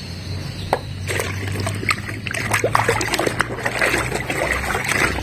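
Water splashing and sloshing as plastic toy vehicles are washed by hand in a basin, with many small knocks and clicks from about a second in.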